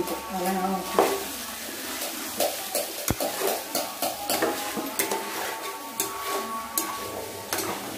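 A spatula scraping and clacking against a kadai as chicken pieces are stir-fried, with a light sizzle of frying. The clacks come many times, unevenly, throughout.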